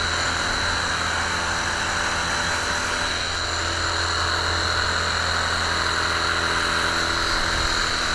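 Sunglife cordless electric pressure washer running steadily and spraying water through a small nozzle tip: an even hiss with a steady high whine and a low hum, unchanging throughout.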